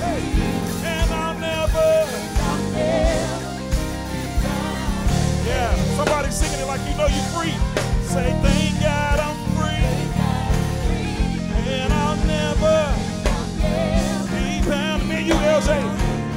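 Live gospel worship band playing with drum kit, electric guitar, bass and keyboard, while vocalists sing with vibrato over it.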